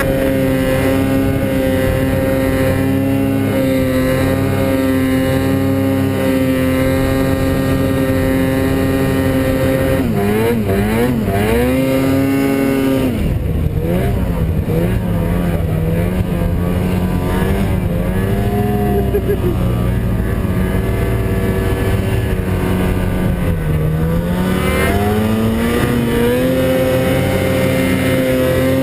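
Snowmobile engine holding a steady high pitch for about ten seconds. The revs then rise and fall unevenly and settle lower for several seconds, before climbing back to the steady pitch near the end.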